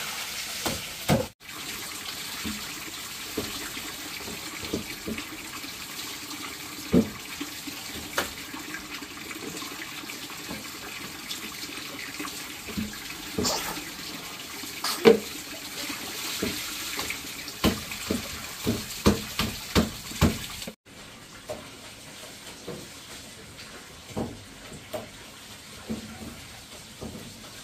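Water running steadily with scattered knocks and clinks. The sound gets quieter after a brief break about three-quarters of the way through.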